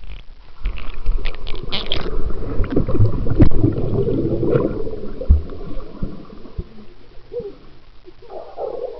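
Muffled bubbling and churning water heard through a camera held underwater in a swimming pool, as children in the water plunge and kick around it, with many dull knocks. It is loudest in the first few seconds and dies down later.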